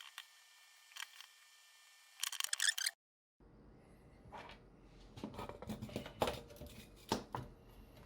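Light clicks and taps of small tools being handled at a workbench, with a brief flurry of quick clicks and rustling about two seconds in; the sound cuts out for a moment near three seconds, then handling noise and taps resume.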